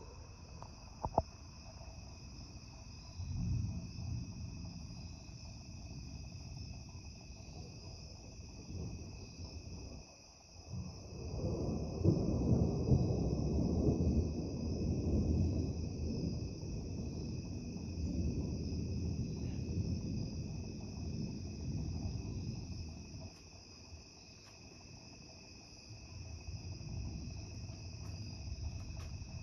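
Crickets and other insects chirping steadily in a night chorus. Under them, a low rumbling noise swells about three seconds in, again for about ten seconds from eleven seconds in, and once more near the end.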